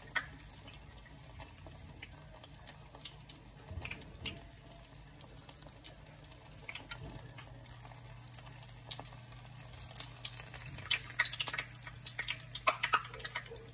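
Egg-battered tortilla pieces frying in hot oil in a skillet: faint, scattered crackles and pops, thicker near the end as oil drips back into the pan from a piece lifted out of it. A low steady hum runs underneath.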